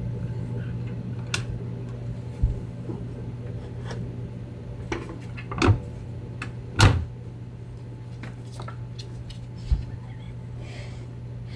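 A handful of soft knocks and thumps, the loudest about seven seconds in, over a steady low hum.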